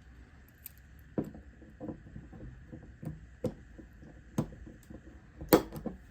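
Small, sharp metal clicks and taps, about eight spread unevenly, as snap ring pliers work at the retaining ring of a Craftsman 3/8 ratchet. The sharpest click comes about five and a half seconds in.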